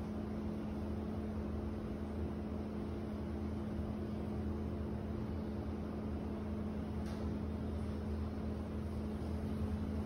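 A steady mechanical hum, holding one pitch, over a low rumble and a faint even hiss. There is one faint tick about seven seconds in.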